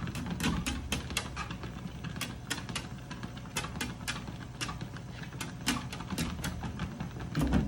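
A dog's claws clicking irregularly, a few times a second, as it walks on a treadmill, over the steady low hum of the running treadmill.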